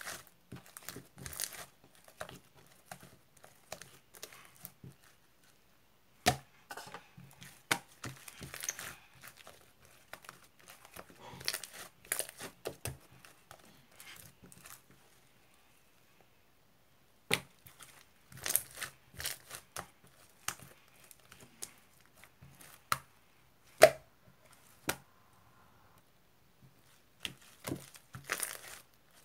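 Crinkly material being handled, in irregular bursts of crinkling and tearing with sharp clicks and short quiet pauses between them. The sharpest click comes about two thirds of the way through.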